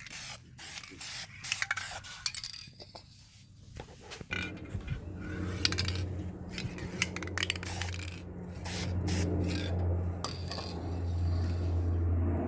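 Clicks, light clinks and scraping of hard objects being handled, then from about four seconds in a steady low hum joins and carries on.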